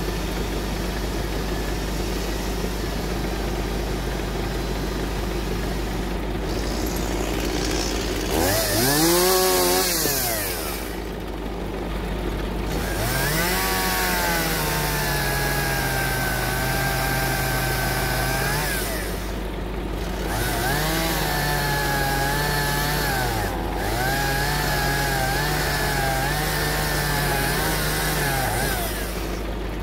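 Two-stroke chainsaw cutting dead ash logs in bursts. A short rev up and down comes about eight seconds in, then longer cuts are held at high revs, and the pitch dips several times during the last cut. A steady engine idles underneath throughout.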